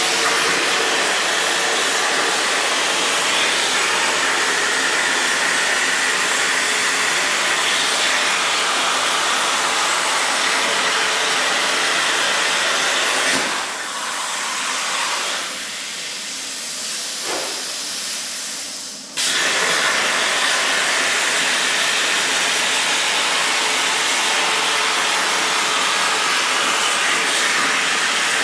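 CNC plasma torch cutting 16 gauge sheet steel on an Eastwood Versa-Cut table, a loud steady hiss of arc and air. About halfway through it eases to a quieter hiss for roughly six seconds, then cuts back in abruptly at full strength.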